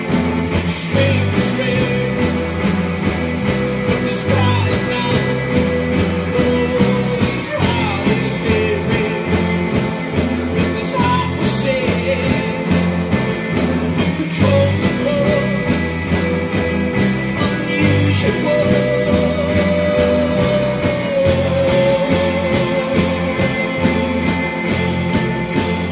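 A rock band playing live: a steady drum-kit beat under electric guitars, with a male singer holding long, wavering notes.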